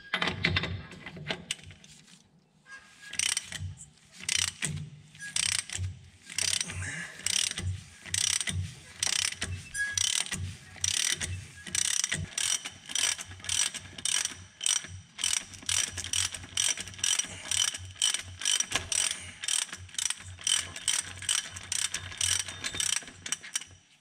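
Ratchet wrench clicking in repeated strokes as it turns the forcing screw of a harmonic balancer puller, drawing the harmonic balancer off the crankshaft of a Dodge Magnum engine. The clicks come about two to three a second and start a couple of seconds in.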